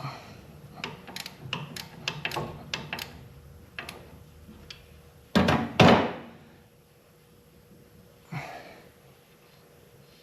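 A run of light clicks and knocks, then two heavy thunks close together about five and a half seconds in and a softer one near eight and a half seconds: workshop handling noise.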